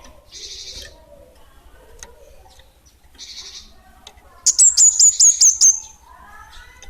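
A caged kemade bunga api songbird calling: a loud, rapid run of about seven sharp, very high notes lasting just over a second past the middle, with two short raspy hissing calls earlier and faint lower twittering.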